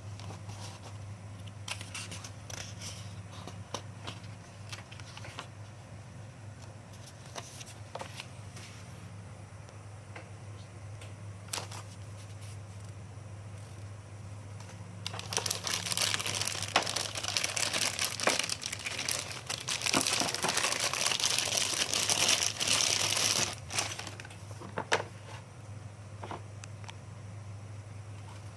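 Packaging being handled: scattered clicks and taps, then about eight seconds of dense crinkling and crumpling in the middle, then a few more clicks, over a low steady hum.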